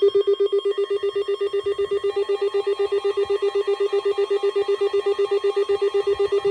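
Electronic alert alarm from a weather-radio or emergency-alert receiver: a loud, rapidly pulsing beep at about nine pulses a second, with fainter tones joining about two seconds in.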